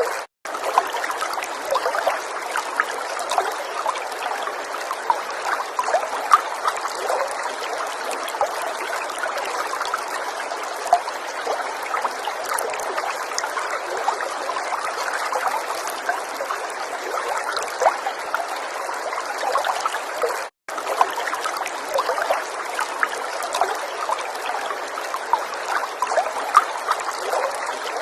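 Falling water trickling and splashing steadily, a dense patter of small droplet sounds. The sound cuts out for an instant twice, just after the start and about two-thirds of the way through.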